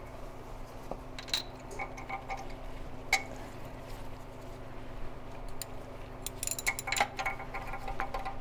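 Steel spark plug socket and wrench clinking metal on metal as they are worked down onto a spark plug in a Chevy 350 V8, in scattered light taps with a quicker flurry near the end.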